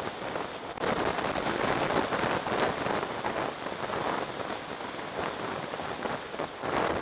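Wind rushing and buffeting over the microphone of a camera on a motorcycle riding at road speed, an even rushing noise with rapid flutter that gets a little louder about a second in.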